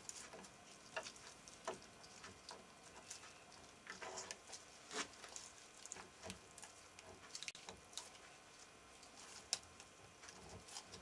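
Faint, irregular metallic clicks and taps from the gears and selector forks of a BSA three-speed motorcycle gearbox shifting against each other and the casing as the whole gear cluster is eased out by hand in one piece.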